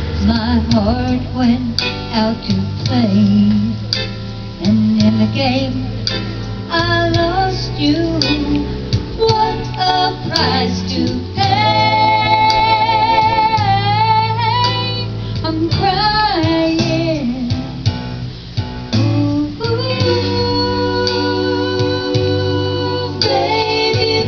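A woman singing into a microphone over an instrumental backing with guitar, amplified through PA speakers, holding some notes with vibrato about halfway through.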